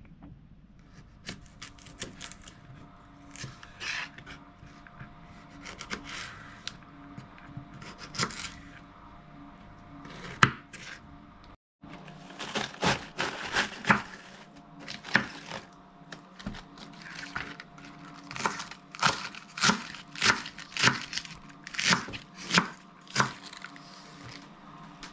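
A knife slicing a jalapeño pepper on a cutting board with light, scattered cuts; then, after a short break about halfway through, crisp, crunchy strokes as it shreds a head of iceberg lettuce, about two strokes a second.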